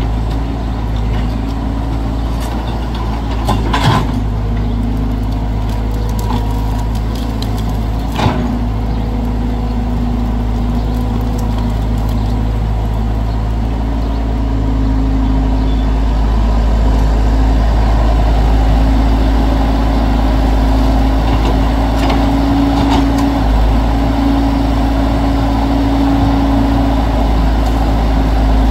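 Caterpillar excavator's diesel engine running steadily under load, with a humming tone over its low drone. There are two sharp knocks about four and eight seconds in, and the machine grows louder from about halfway.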